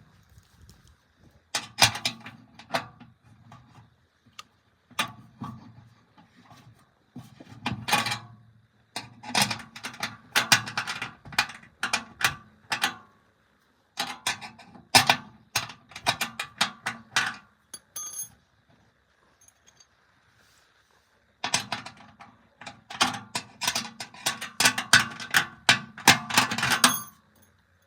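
Bursts of rapid metallic clicking and rattling from a hand tool tightening screws into metal fittings, stopping and starting several times, with a longer pause a little past the middle.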